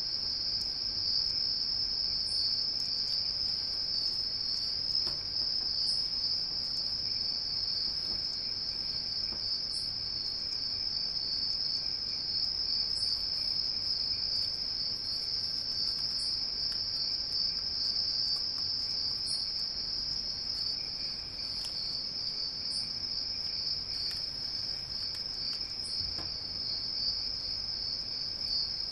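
A steady, high-pitched trill that goes on without a break.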